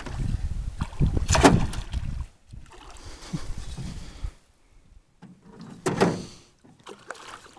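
Wind rumbling on the microphone, then water lapping and splashing against the side of a small boat, with two louder splashes or knocks, about a second and a half in and about six seconds in, as a hooked fish is brought alongside for netting.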